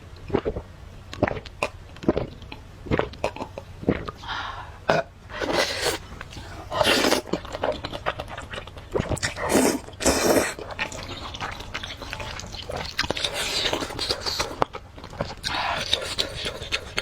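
Close-miked eating of spicy rice noodles: chewing with short wet clicks, then several longer slurps from about four seconds in.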